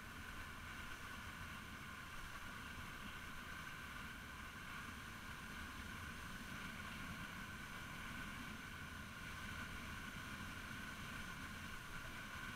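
Steady, muffled rumble and hiss of a motor scooter on the move: its engine running with wind and road noise.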